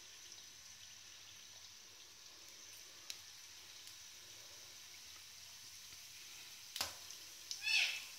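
Donut dough frying in hot oil in a steel wok: a faint steady sizzle with a few small pops. Near the end a sharp click, then a brief high squeak.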